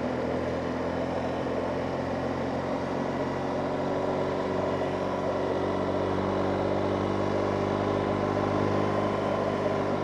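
BMW motorcycle engine running at a steady pace while riding, with road noise.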